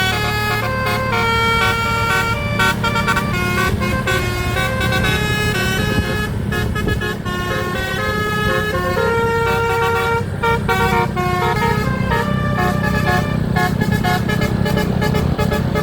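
A bus's basuri telolet horn, a set of tuned air horns, plays a fast melody of quickly changing notes over a steady low rumble.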